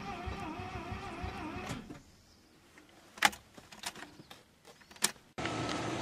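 Mazda RX-7's starter slowly cranking its 13B rotary engine on a battery too weak to start it, a whine wavering in pitch that stops about two seconds in. Two sharp clicks follow, then a steady background hum starts suddenly near the end.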